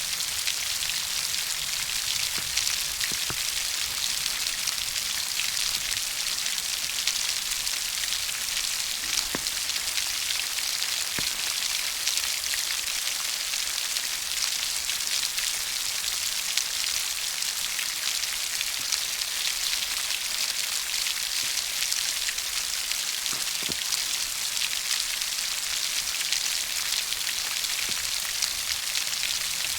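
Steady rainfall: an even hiss of rain with many small drop ticks, and now and then a single louder drip.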